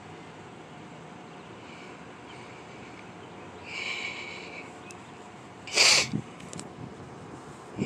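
A short, sharp sniff close to the phone's microphone about six seconds in, over a steady outdoor hiss. Just before it, around four seconds in, there is a brief faint high-pitched tone.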